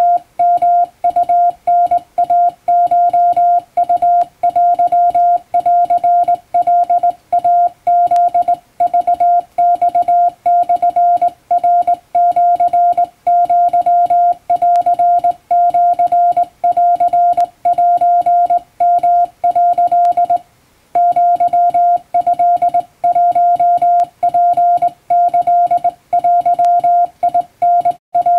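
Morse code tone keyed by hand on a straight key, sounding out Japanese wabun code as a steady stream of short and long beeps of one pitch, with one brief pause about two-thirds of the way through.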